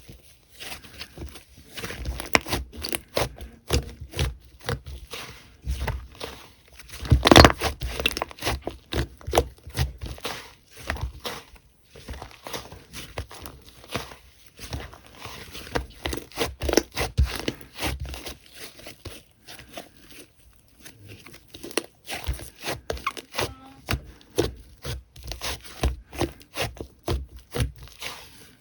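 Slime being squished and pressed by hand, making a dense, irregular run of sticky crackles and popping clicks, loudest in a burst about seven seconds in.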